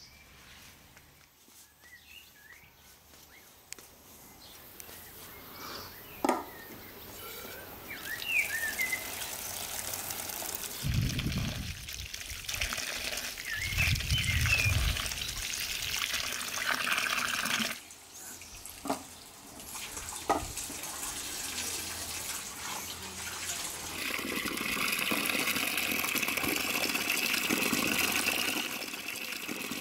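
Water splashing and trickling as hands rinse and turn peeled onions in an enamel bowl, beginning about a third of the way in and coming in two spells.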